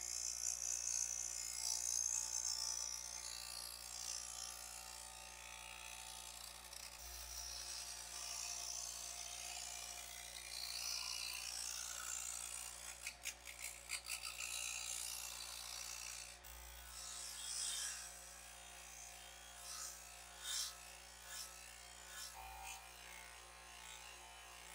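Wire wheel spinning on a bench motor and scrubbing rust off a steel hand-saw blade. A steady motor hum sits under a scratchy hiss that swells and fades as the blade is pressed to the wheel, with a quick run of clicks about halfway through.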